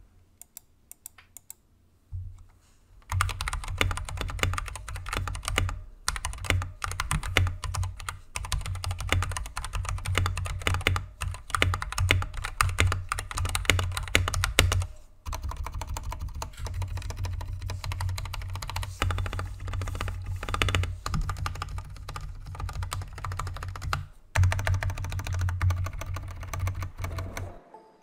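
Fast typing on a Royal Kludge RK100 96% mechanical keyboard with Gateron switches and aftermarket keycaps: a dense run of keystroke clacks. It starts with a few lone taps, picks up about three seconds in and pauses briefly a few times.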